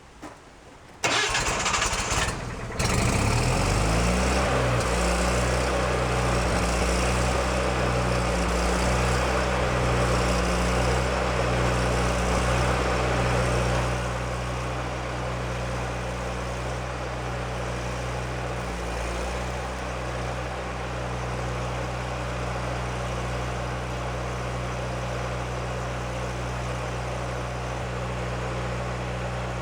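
Engine of a Miller Trailblazer engine-driven portable welder cranking about a second in, catching, and running steadily. It drops a little in level about halfway through and runs on.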